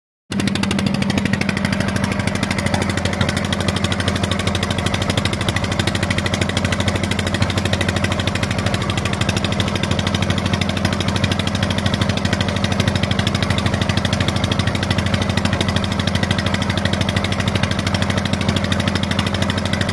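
Boat engine running steadily at a constant speed, cutting in suddenly just after the start.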